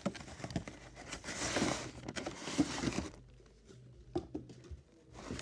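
Cardboard and plastic packaging of a Pokémon card collection box being handled and opened: rustling and scraping with small clicks and taps. It is busiest in the first three seconds, then quieter with a few taps.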